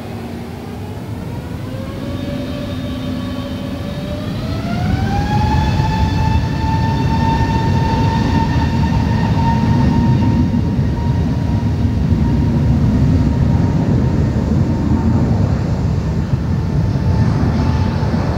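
The four turbofan engines of an Airbus A380-800 spooling up. A whine climbs slowly, rises sharply about five seconds in, then holds steady as the low rumble grows louder: thrust building for the takeoff roll.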